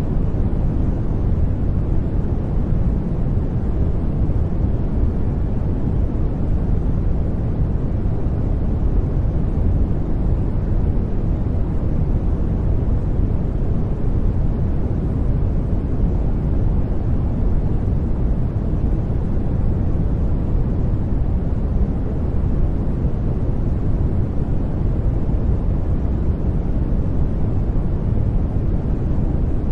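Steady white-noise track: an even, unchanging hiss heaviest in the bass, so it sounds deep rather than bright.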